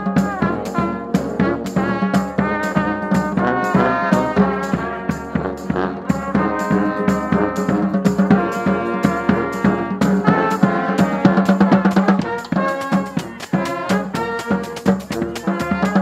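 Street brass band playing: sousaphone, saxophone and brass horns over marching drums beating a steady beat.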